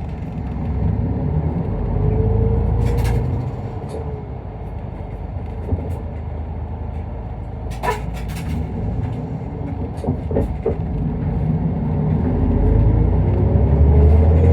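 Isuzu Erga Mio route bus heard from inside the cabin as it pulls away from a stop: the diesel engine rumbles and revs up, with a rising whine that climbs twice as the bus gathers speed, and a few sharp rattling clicks from the cabin.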